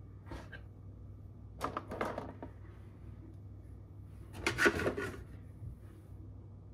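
Handling noise from unboxing packaging: a PVC figure set down in a clear plastic blister tray and a cardboard box turned on a wooden tabletop. There are two short bursts of clicking and rustling, about one and a half seconds in and again about four and a half seconds in, the second louder.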